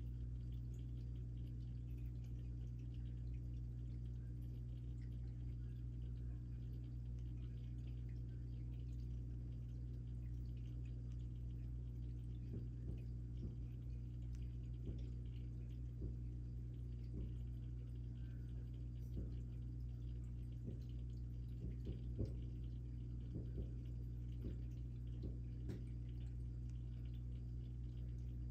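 Aquarium pump running with a steady low hum, with faint scattered ticks in the second half.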